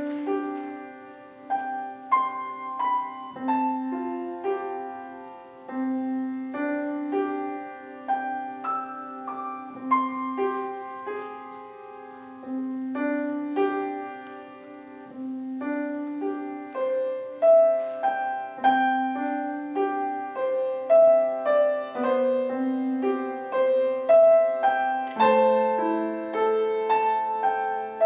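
Solo piano playing an instrumental worship piece, a melody over ringing chords, growing louder and fuller in the second half.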